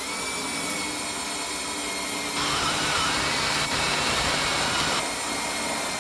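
Electric hand drill running steadily with a drill bit of about 1/8 inch, drilling a rivet hole through stainless steel sheet; the drilling gets louder for a couple of seconds in the middle.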